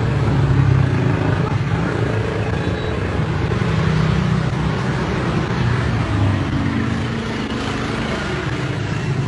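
Steady low rumble of engines and road traffic, with no distinct events standing out.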